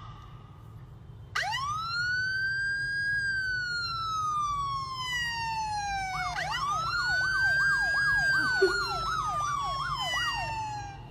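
Emergency vehicle siren: a long wail that rises, then slowly falls. It rises again, with a fast yelp warble of about three cycles a second over the slow wail, and fades near the end.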